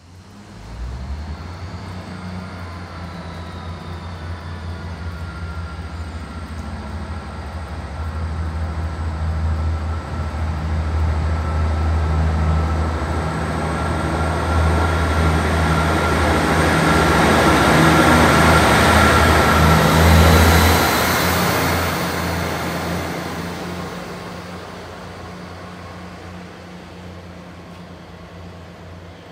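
Two coupled Class 158 diesel multiple units pulling away under power. A steady diesel engine drone with a thin whine above it grows louder as the train comes past, is loudest about two-thirds of the way in, then fades as it draws away.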